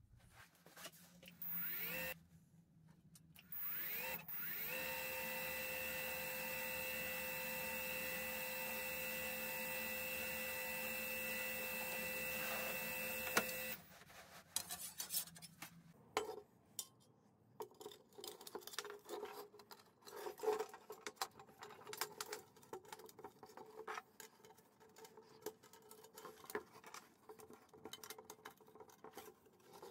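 An electric power tool motor briefly starts, then spins up with a rising whine and runs steadily for about nine seconds before cutting off. After that, scattered clicks and light knocks of metal parts and clamps being handled.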